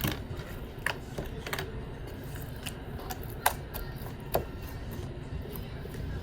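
Slime being spread and worked by hand on a table: a handful of sharp, irregular clicks and snaps over a faint low background.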